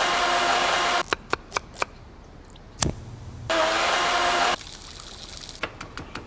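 Electric countertop blender motor running in two short pulses of about a second each, each cut off abruptly. Between them come a few sharp clicks and one louder knock. Near the end, light taps of a pestle in a ceramic mortar.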